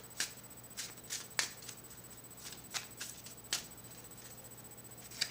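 A deck of playing cards being shuffled by hand: a quiet scatter of short, sharp card snaps at uneven intervals.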